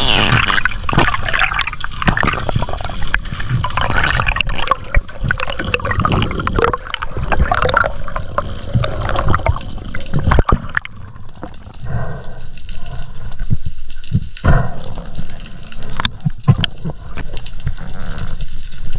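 Underwater water noise on a camera mounted to a speargun: water rushing and gurgling over the housing as the diver moves, easing off about ten seconds in, with scattered sharp clicks and knocks throughout.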